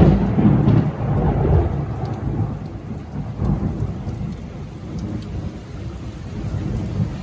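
A long roll of thunder, loudest at the start and rumbling away over the next several seconds, with steady heavy rain pouring.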